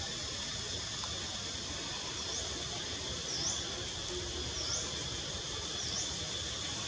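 Outdoor ambience: a steady high-pitched insect drone, with a bird repeating a short dip-and-rise chirp about once every second or so from around two seconds in.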